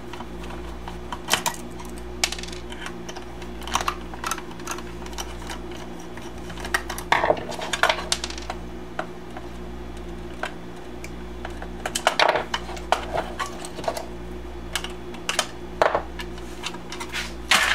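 Irregular clicks, taps and rattles of small plastic toy parts, wires and hand tools being handled and set down on a workbench during a teardown, with the occasional snip of side cutters through wire. A steady low hum runs underneath.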